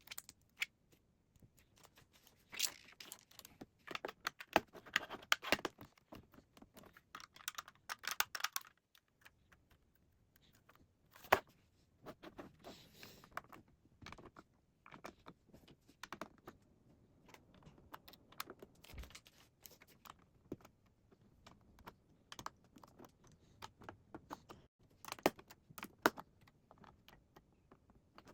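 Plastic Lego bricks clicking and rattling as pieces are handled and pressed together by hand: bursts of rapid small clicks with quieter gaps between, and one sharp snap about eleven seconds in.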